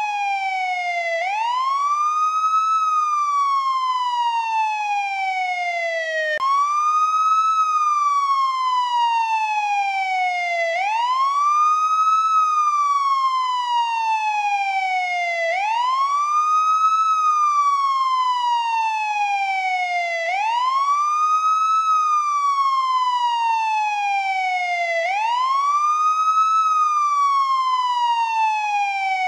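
American police siren in wail mode: a tone that rises quickly and then falls slowly, repeating about every five seconds for six sweeps. About six seconds in, the pitch jumps abruptly upward partway through a fall.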